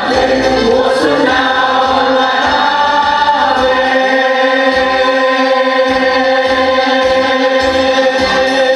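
Mixed choir of women's and men's voices singing; about three seconds in, the voices settle onto one long held chord.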